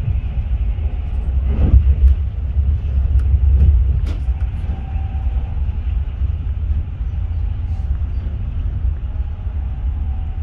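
Running noise of an East Midlands Railway HST (InterCity 125) train on the move: a steady, heavy low rumble of wheels on track, with a few sharp clicks and knocks in the first few seconds.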